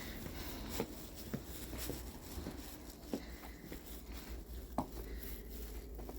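Footsteps in deep snow: faint, irregular crunches and taps, about one a second.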